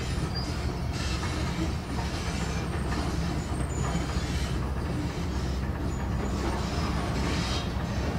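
Excavator's diesel engine running steadily with a low rumble while the machine works its arm, digging and clearing ground.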